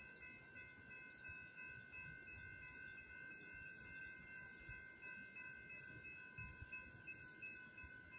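Faint electronic grade-crossing warning bell ringing steadily, a high multi-tone ring with a slight regular pulse, over a low outdoor rumble.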